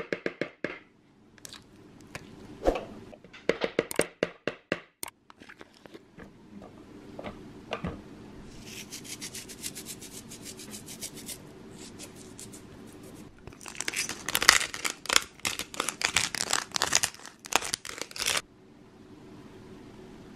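A spoon scrapes cream cheese out of a plastic tub into a food processor bowl of walnuts. Then salt and pepper grinders are twisted over the bowl: fast crunching clicks, one run near the middle and a longer, louder run in the second half.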